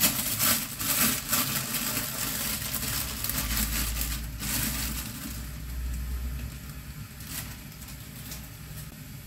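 Plastic zip bag crinkling and rustling as it is opened and a bunch of enoki mushrooms is pulled out. The crackle is dense for the first four seconds or so, then thins to lighter rustles over a low steady hum.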